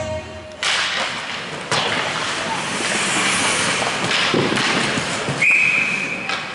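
Ice rink play noise of skates and sticks on the ice, then a referee's whistle blowing one steady high note for about a second near the end, stopping play.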